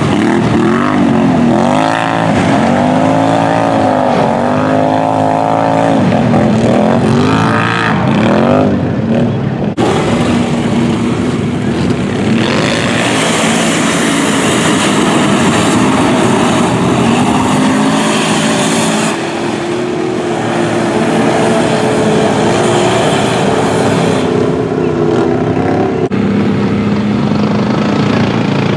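ATV engines revving hard, rising and falling over and over, as four-wheelers churn through a deep mud bog. About halfway through, spinning wheels throw mud and water in a loud, spraying rush. Near the end a steadier, lower engine note takes over.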